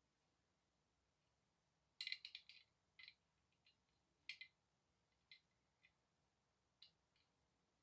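Faint light clicks and ticks, a quick cluster of several about two seconds in, then single clicks spaced about a second apart.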